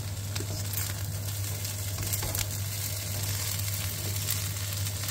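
Fried rice sizzling in a hot non-stick pan while a wooden spatula stirs it, with scattered small clicks and scrapes. A steady low hum runs underneath.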